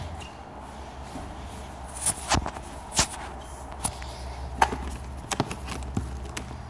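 Footsteps on a bare concrete floor: a run of hard, irregularly spaced steps and knocks beginning about two seconds in, over a steady low hum.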